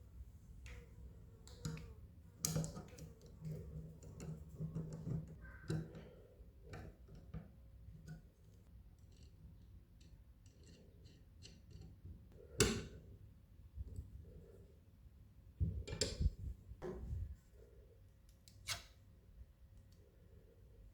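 Restored garden shears being worked: the metal blades snip and click shut at irregular intervals, with a sharp loud clack about halfway through and a cluster of snips a few seconds later.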